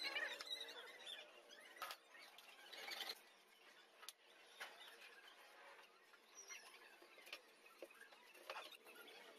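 Faint workshop handling: a few light clicks and taps as the wood panels and trim strip are moved, with some short high squeaks near the start and about three seconds in.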